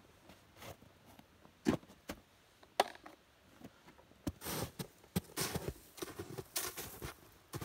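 Footsteps crunching through snow, a steady run of crunches from about four seconds in, after a few scattered knocks.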